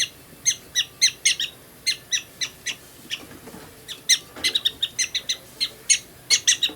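Pet black-tailed-type prairie dog chirping: a rapid string of short, high, sharp calls, several a second in uneven runs.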